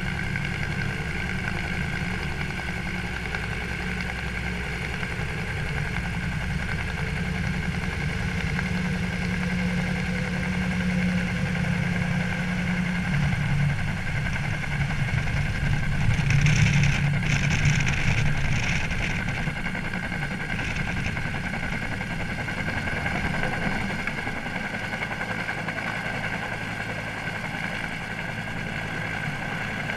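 Helicopter heard from the load slung beneath it: steady rotor beat and turbine whine. A louder rush of noise comes for a few seconds past the middle.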